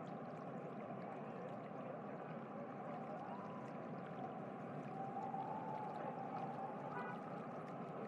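Steady rushing background noise, with a faint wavering tone partway through.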